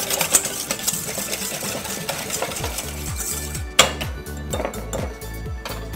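Wire whisk beating a dressing in a stainless steel mixing bowl: rapid, steady clinking and scraping strokes of the wires against the metal, with one sharper clink a little before four seconds in. Background music comes in partway through.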